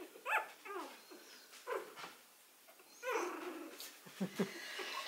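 Three-week-old puppies whimpering and squeaking in a string of short, high, wavering calls, with a longer one about three seconds in.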